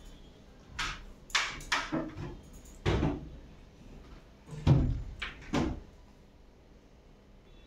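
A series of about seven short knocks and thumps of household objects being handled, the loudest about two thirds of the way through.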